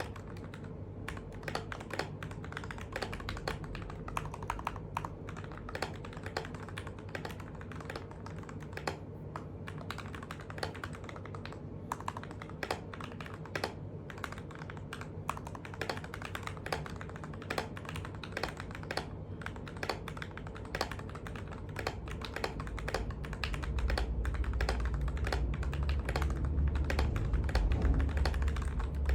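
Typing on a TM680 mechanical keyboard with linear Gateron Milky Black switches lubed with Krytox 205g0, ABS keycaps and case and plate foam: a dense, uneven run of keystrokes, picked up by a phone microphone. A low rumble swells in about two-thirds of the way through and is loudest near the end.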